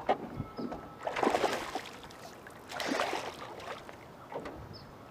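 Water splashing twice, about a second and a half apart, at the side of a small boat.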